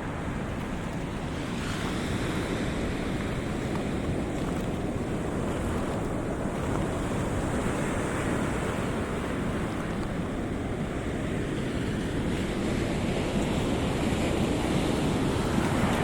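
Ocean surf washing on a cobble beach, a steady rushing that swells a little near the end, with wind buffeting the microphone.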